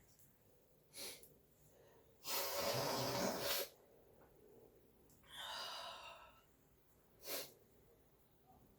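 A person's nose and breath as he tries to set off a sneeze: short sharp sniffs, a loud rush of air through the nose lasting over a second about two seconds in, and a softer breath with a slight whistle a few seconds later.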